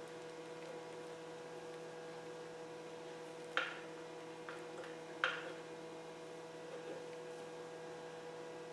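Faint steady electrical hum, with two sharp clicks about a second and a half apart and a few fainter ticks as hand grips knock against the engine block.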